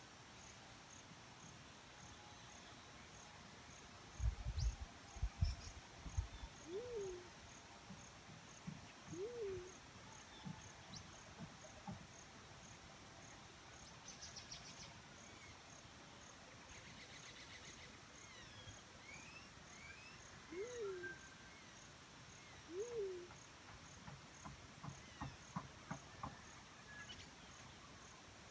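Black-chinned fruit dove giving four low coos, each rising and then dropping in pitch, in two pairs about two seconds apart, over a steady pulsing insect chorus. A short burst of low thumps a few seconds in is the loudest sound.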